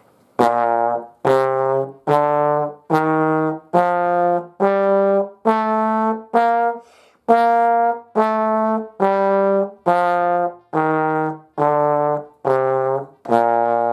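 King 3B tenor trombone playing the B-flat major scale. About sixteen separately tongued notes at a moderate steady tempo climb an octave from low B-flat and step back down to it.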